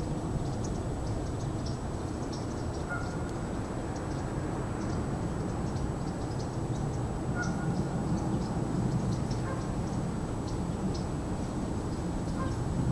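Outdoor ambience: a steady low rumble with scattered short bird calls and chirps.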